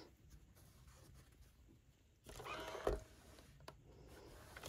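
Faint rasping of fabric pieces and a clothes iron being handled on a wool pressing mat, with a sharp knock about three seconds in.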